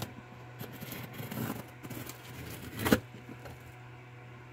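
A cardboard shipping box being cut and opened with a knife: scraping and rustling of the blade and cardboard flaps, with a sharp snap about three seconds in.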